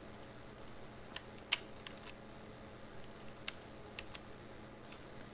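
Computer keyboard and mouse clicking: about a dozen short, irregularly spaced keystrokes and clicks, the loudest about a second and a half in.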